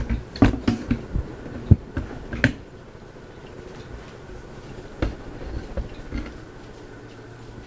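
Irregular sharp clicks and knocks, several close together over the first two and a half seconds and a few more about five to six seconds in, over a faint steady hum.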